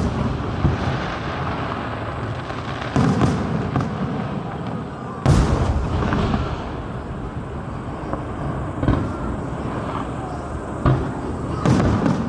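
Aerial fireworks shells bursting, about six sharp bangs with the loudest about five seconds in, over a continuous crackle and rumble from the display.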